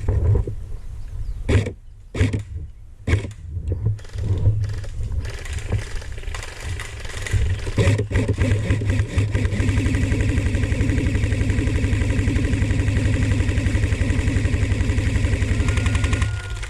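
A small engine starting: a few uneven thumps, then it catches about eight seconds in and runs at a steady, evenly pulsing idle until it cuts off near the end.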